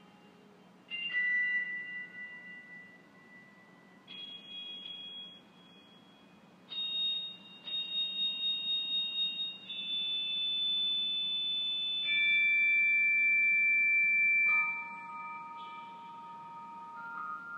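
Organ holding high, clear sustained chords that change every two or three seconds. The loudest chord comes in a little past the middle, and a lower chord takes over near the end.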